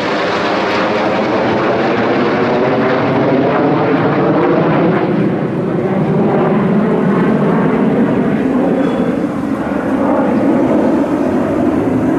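Jet engines of an Airbus A330 MRTT tanker and Dassault Rafale fighters passing overhead: a loud, continuous rumble whose tone slowly shifts.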